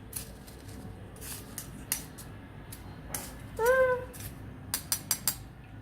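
Metal spoon pressing and scraping fried garlic and spices in a kitchen strainer to squeeze out the mustard oil, with light scrapes and a quick run of clinks near the end. A short rising vocal sound breaks in a little past halfway.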